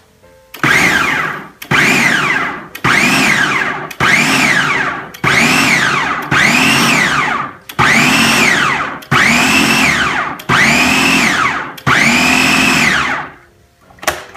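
Ninja blender's motor pulsed about ten times in a row, each short burst whining up and then winding down, as the blades grind raw chicken breast pieces into mince. The last pulse is held a little longer.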